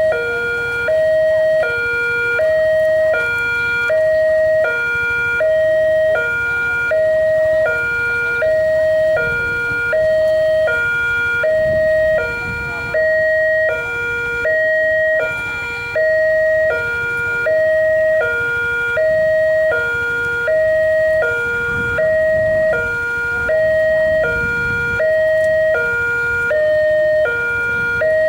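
Railway level-crossing warning siren sounding a steady two-tone hi-lo wail, switching between a higher and a lower tone about once a second. The uploader calls the siren an error, a malfunctioning crossing alarm.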